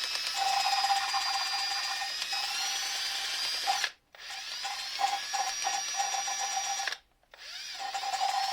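Electric drill driving an oscillating valve-lapping tool, grinding an intake valve into its seat with coarse lapping paste: a steady motor whine. It cuts out twice, about four and seven seconds in, and starts again each time.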